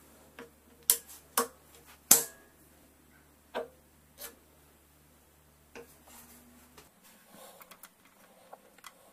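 Six or so sharp clicks and taps of small objects being handled, the loudest about two seconds in, over a faint low hum that stops about two-thirds of the way through.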